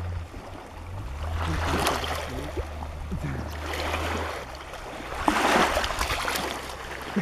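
Shallow water washing and splashing at the shoreline, swelling twice, over a steady low hum that stops after about four seconds.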